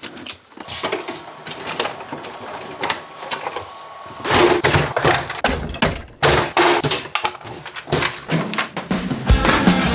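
Irregular run of sharp clicks, knocks and clatter from RC car parts and tools being handled on a workbench, denser and louder from about four seconds in. Music starts just before the end.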